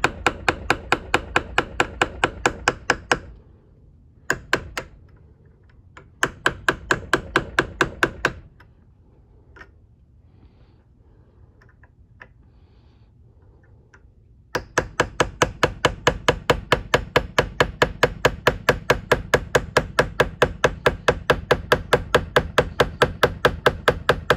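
Small ball peen hammer tapping a sharp tip steel punch in runs of rapid light blows, about six a second, with a pause of several seconds midway. The punch is being worked against the edge of a broken, stuck thumb screw's stub to turn it out of a bandsaw blade guide.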